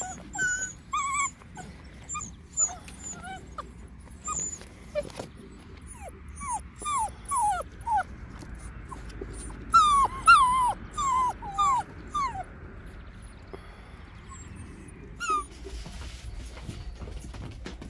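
Seven-week-old Dobermann puppies whimpering and yipping: a string of short, high whines that drop in pitch. They come thickest from about six to twelve seconds in.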